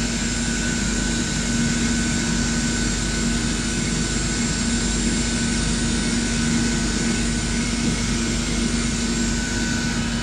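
CNC lathe machining with its door shut: a steady machine hum under the even rush and splash of coolant streaming down the inside of the door window.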